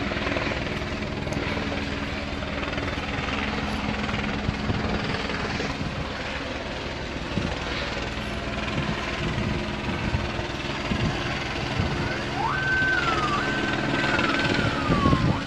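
A helicopter running steadily overhead. About twelve seconds in, an emergency vehicle's siren starts up, rising sharply in pitch and then wavering up and down.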